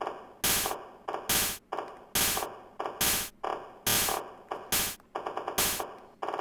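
Teenage Engineering PO-24 Office pocket operator playing a looped drum-machine beat: sharp percussion hits, each fading quickly, in a steady repeating pattern of bass drum and snare.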